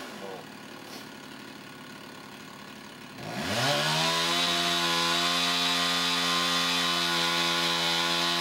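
Chainsaw running at low speed, then revving up about three seconds in and holding a steady high speed.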